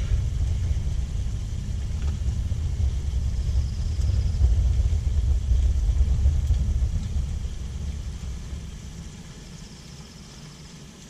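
A low, uneven rumble that fades away over the last few seconds.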